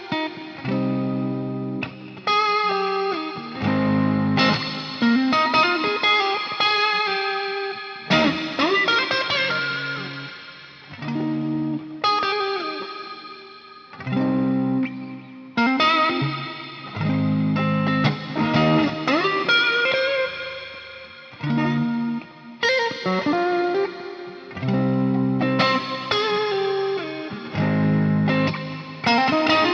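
Stratocaster electric guitar with Fender Texas Special single-coil pickups, played through an amp patch. Chords are struck and left to ring out, alternating with single-note lead lines that have string bends. The pickups run a little hot for the patch.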